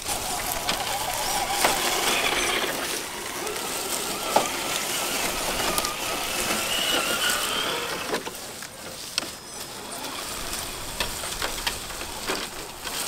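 Electric drive motor and gearbox of a 1/10-scale RC crawler truck whining as it creeps through grass and leaf litter, the pitch rising and falling with the throttle and fading after about eight seconds. Tyres rustle through the grass and leaves, with a few sharp clicks.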